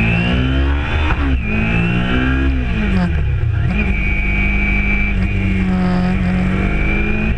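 Kawasaki Ninja 300's parallel-twin engine through a Yoshimura exhaust, revving up with a sharp drop in pitch about a second in, like a gear change, then revving again and falling away. It holds a steady note over the last few seconds.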